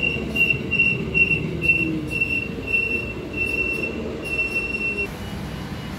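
Two-car Transperth A-series electric train braking into the platform: a high wheel squeal comes in repeated short beats that stretch out as the train slows, then stops about five seconds in, over the low rumble and falling motor hum of the train.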